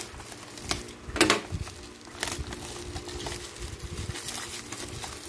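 Plastic bubble wrap crinkling and rustling as it is unwrapped by hand, with irregular crackles and a louder burst of crinkling about a second in.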